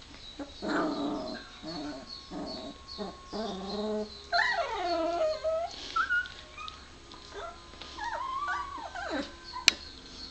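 Very young puppies whimpering and crying: a run of short, low grunting cries, then two longer whining calls that bend downward in pitch, about four and eight seconds in. A single sharp click near the end.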